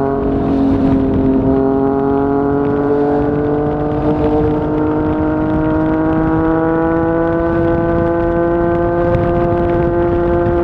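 Yamaha MT-09's inline three-cylinder engine running through a Yoshimura R55 slip-on exhaust, pulling steadily under throttle with its pitch rising slowly as the bike accelerates in one gear.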